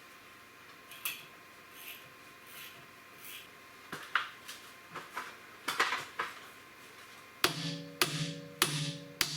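Hand tool work on steel: scattered clicks and light knocks, then from about seven seconds in a run of hammer blows on metal, about one every half second, each one ringing.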